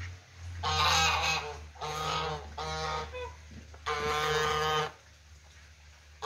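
Domestic geese honking: four drawn-out calls in a row, the last and longest about four seconds in.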